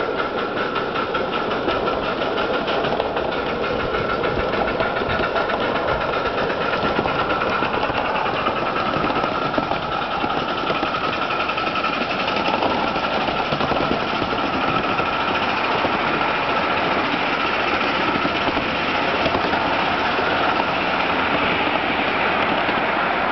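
Ride-on miniature live-steam locomotive, a 1961 English-built Britannia, running along the track with a fast, even beat over the rolling noise of the riding cars' wheels on the rails.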